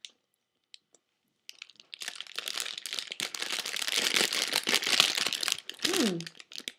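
Crinkling of the wrapping around a marshmallow popcorn ball as it is handled. It starts about two seconds in and runs as dense crackle for about four seconds, with a short falling tone near the end.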